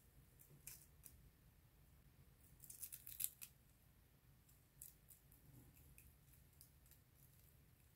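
Faint crackling and crinkling of a bearded dragon's dry shed skin being picked and peeled off with metal tweezers: scattered light clicks, with a denser burst of crackles about three seconds in.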